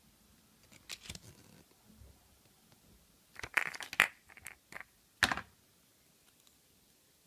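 Small plastic toys and packaging handled by hand: a few clicks and rustles about a second in, then a burst of sharp clicks and rattles in the middle, loudest near the end of that burst.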